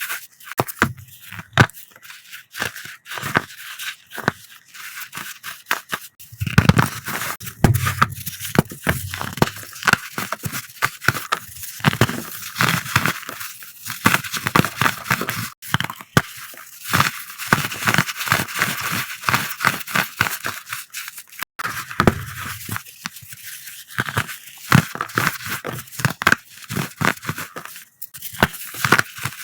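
Pressed powder blocks being crushed by hand: a dense, crunchy, crackly run of snaps and crumbles with a slight squeak, with a few fuller, deeper crunches along the way.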